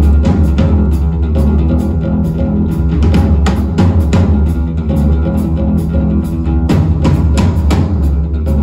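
Rock-style music with a drum kit keeping a steady beat over bass and guitar.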